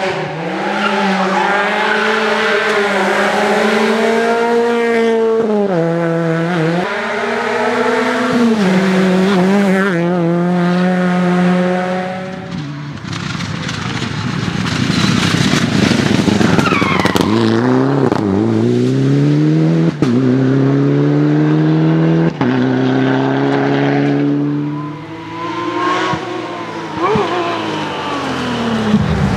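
Rally cars racing past at full throttle one after another, their engines revving high and shifting up through the gears with sharp drops in pitch at each change.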